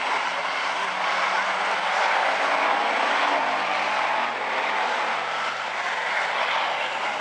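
Engines of a field of Hobby Stock race cars running at speed around a short oval, a steady drone of many engines. One engine note falls slightly in pitch midway.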